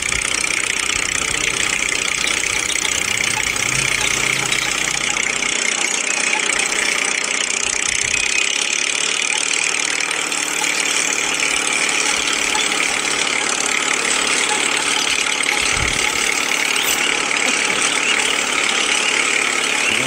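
Steady engine-like running sound, like a small tractor idling, going on without a break; the deep part of the rumble drops away about six seconds in.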